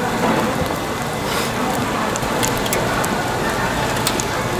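Cooking oil sizzling steadily under flat dumplings frying on a griddle, with scattered small crackling pops.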